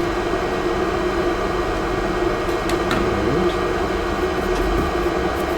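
Steady hum of a small fan or motor, with a few faint light ticks about halfway through and again near the end.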